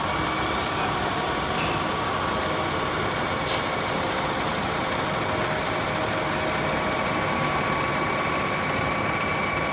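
Vac-Con sewer-cleaning truck running steadily, a constant whine over the machinery noise, with one brief click about three and a half seconds in.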